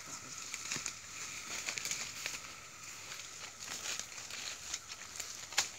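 Irregular rustling and crinkling with scattered small crackling clicks, and one sharper click near the end.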